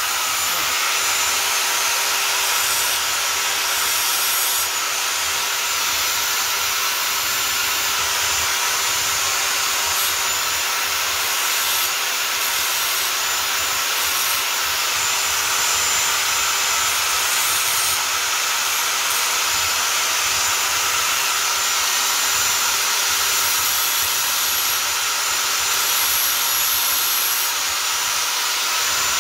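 Hand-held angle grinder running steadily with a constant whine, its disc grinding against steel, blunting the sharp cut-off ends of the anti-ice spikes set in a boot sole.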